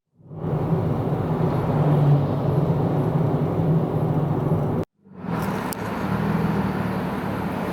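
A car engine running at a steady pitch with road and traffic noise around it. The sound drops out abruptly for a moment at the start and again about five seconds in, then carries on.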